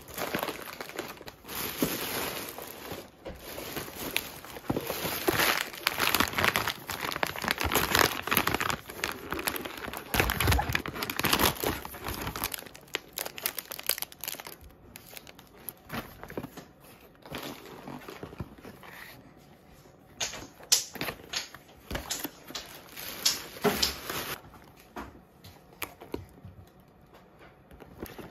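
Clear plastic grocery bags and plastic food wrappers crinkling and rustling as items are handled and pulled out. The rustling is dense for roughly the first half, then turns into sparser separate crinkles and clicks.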